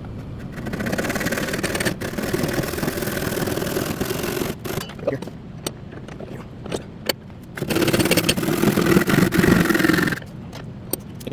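Saw cutting through a piece of wood in two long spells of sawing, the first about four seconds and the second about two and a half. A few knocks and taps come in between.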